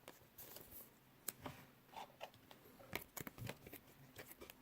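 Faint handling of baseball cards: a scattering of light ticks and rustles as cards are slid and shuffled in the hands.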